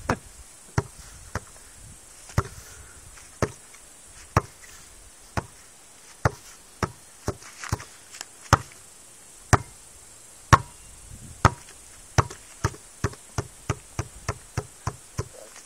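A basketball being dribbled, each bounce a sharp thud. It bounces about once a second, then quickens to about three a second near the end.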